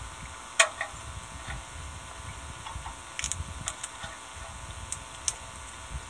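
Scattered sharp clicks and taps of sunflower seeds being cracked open: a loud single click about half a second in, a quick cluster of clicks about three seconds in, and a few single clicks after.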